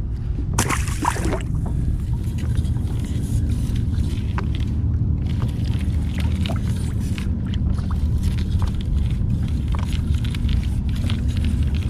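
Steady low rumble of wind and water on a kayak out on the open ocean, with scattered light clicks and knocks and a brief louder rush about half a second in.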